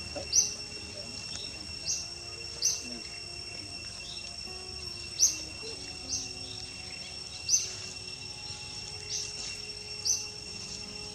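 Insects trilling in a steady high-pitched drone, with about nine short, sharp chirps on top at irregular intervals of roughly one to two seconds.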